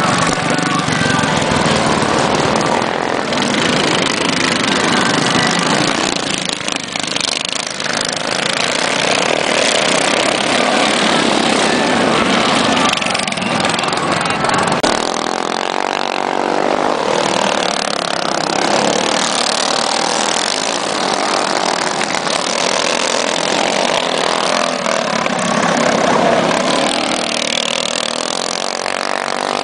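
Engines of several racing go-karts running and revving as the karts lap a dirt oval, their pitch rising and falling as they pass.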